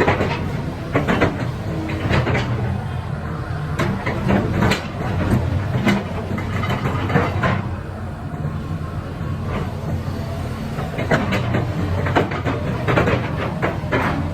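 SANY SY275H excavator's diesel engine running steadily, with frequent metallic clanks and knocks as the machine works.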